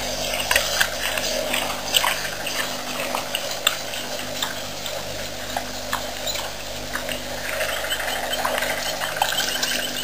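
Common warthog cropping and tearing short grass, a string of irregular snaps and clicks over a steady low hum. Near the end a rapid high trill joins in.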